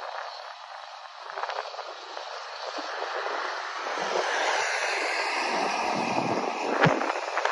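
Distant BNSF freight train's diesel locomotives approaching, a steady noise that grows louder about halfway through, mixed with wind on the microphone. A brief thump near the end.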